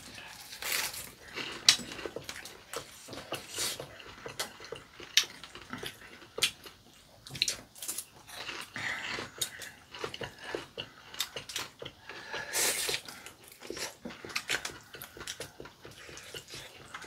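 People eating spaghetti and fried pork cutlet: wet chewing, slurping and lip smacks, heard as many short irregular clicks, with a longer noisy stretch about three quarters of the way through.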